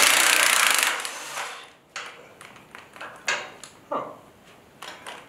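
Cordless impact driver running in a burst of rattling hammering that stops about a second and a half in, undoing a bolt on a boat trailer's mount. It is followed by a few light clicks and knocks of metal and tool handling.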